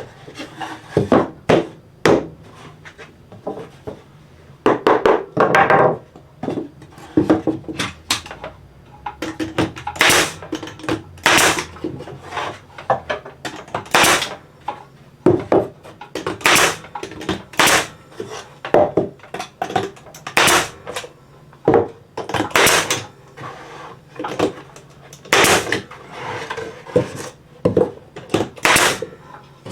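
Cedar fence-picket boards knocked and fastened together while a planter box is assembled: a series of sharp, irregular wooden impacts, some twenty in all, with duller clatter of boards being handled between them.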